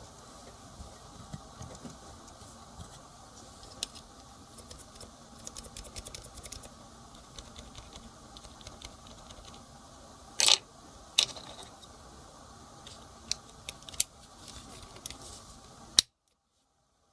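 Irregular keystrokes on a Topre electrostatic-capacitive keyboard fitted with Cherry MX-compatible sliders: light, scattered clacks with a few louder strikes past the middle. A sharp click near the end, then the sound cuts out abruptly.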